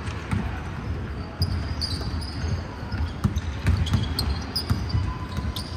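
Basketballs bouncing on a hardwood gym floor: irregular dull thumps as several players dribble, with short high sneaker squeaks among them.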